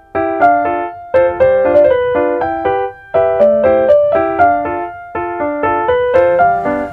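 Background music: a light melody played on a piano-like keyboard in short, evenly paced notes, in phrases of about a second.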